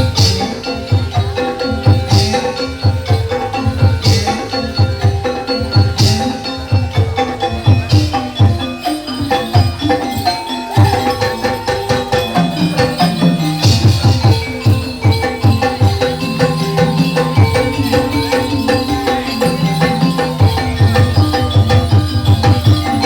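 Javanese gamelan music accompanying a kuda lumping (ebleg) dance: fast rhythmic drumming under steady ringing metallophone tones, with sharp clashing strikes about every two seconds in the first few seconds.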